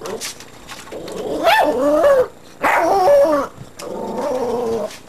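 A young dog barking in three long, drawn-out calls, each about a second long with a wavering pitch. These are alert barks at something the dog sees, though no cause is apparent.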